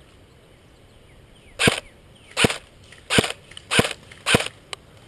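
Airsoft gun fired as five single, sharp shots, spaced a little under a second apart, starting about a third of the way in.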